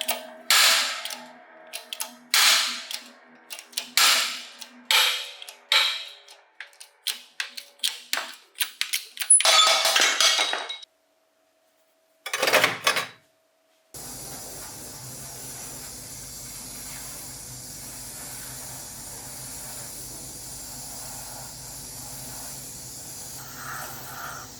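Metal parts of an old bench grinder being struck during disassembly: a series of sharp, ringing metallic knocks that come quicker as they go, then a longer noisy burst. After a short pause, a steady hiss with a low hum takes over.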